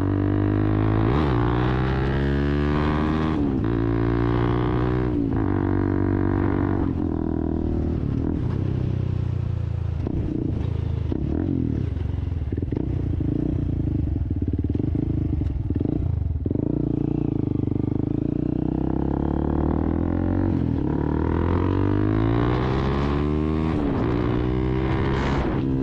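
Sym VF 185 single-cylinder four-stroke engine breathing through a Race Guns aftermarket exhaust, ridden up through the gears: the revs climb and drop sharply at each shift several times, run less evenly in the middle, then climb again near the end.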